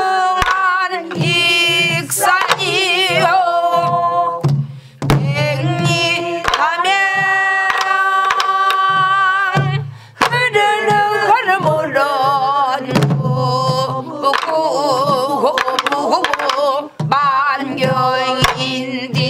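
Pansori-style singing of a danga: a woman's voice holding long notes with wide vibrato, over stick strikes on a buk barrel drum keeping the rhythm.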